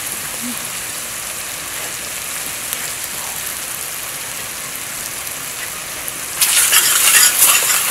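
Hot oil sizzling steadily in a stainless-steel pot under a heap of curry powder and cumin, with fried onions: the spices toasting in the oil. About six and a half seconds in the sizzle turns louder and crackly, with clicks.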